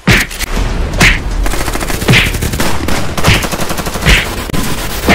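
Rapid automatic gunfire, a dense rattle of shots with a heavier shot or blast about once a second and a low rumble under it.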